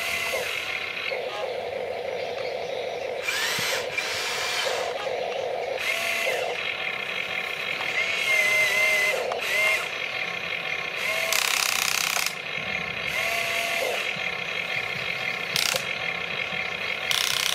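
Electric motors of a remote-control excavator whining in stops and starts as the boom and bucket move, the pitch bending up and down with each movement. Several short, louder bursts of noise come in between.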